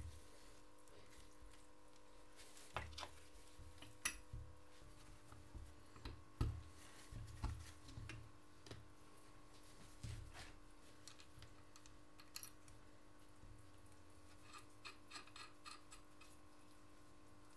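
Faint, scattered metallic clinks and taps as steel gears are slid onto the gearbox shafts of a Simson M531 engine's aluminium crankcase half, with a quick run of small ticks about three-quarters of the way through.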